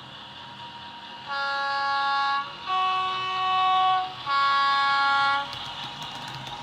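Hornby Class 50 OO gauge model locomotive's DCC sound decoder sounding a two-tone horn through its small onboard speaker: three blasts, high, low, then high again, over a steady quieter running sound.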